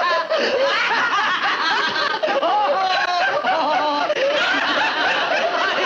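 Several people laughing together without a break, voices overlapping: a woman's put-on, exaggerated laughter with men laughing along.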